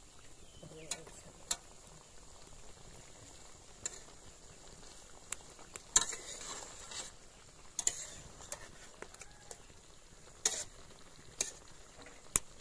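Flat metal spatula stirring and scraping rohu fish pieces frying in masala in a metal kadai, over a faint steady sizzle. Irregular sharp clinks of the spatula against the pan come every second or two; the loudest is about six seconds in.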